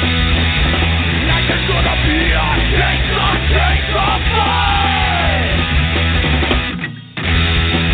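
Punk rock song playing, with yelled vocals over a full band. The music dips almost to a gap for a split second near the end, then comes straight back.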